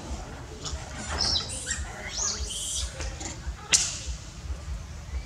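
Several short, high-pitched chirping calls from an animal, gliding in pitch, followed by a single sharp click about three and a half seconds in.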